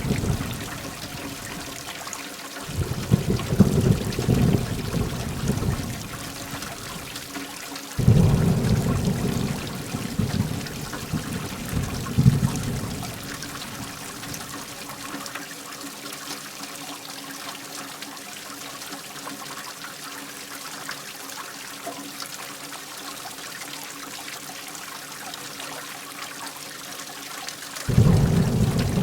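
Steady heavy rain with deep rumbles of thunder. The rumbles start suddenly about three seconds in, again about eight seconds in and near the end, each fading over a few seconds.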